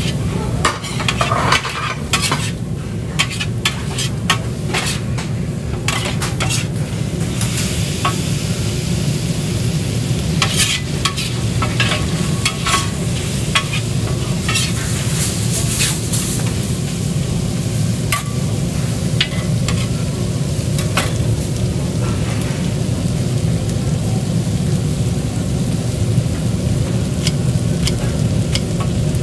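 Pork tripe and vegetables sizzling on a hot flat metal griddle while metal spatulas stir them, scraping and clacking against the plate. The spatula strikes come thick and fast through the first half and thin out later, leaving mostly the steady sizzle.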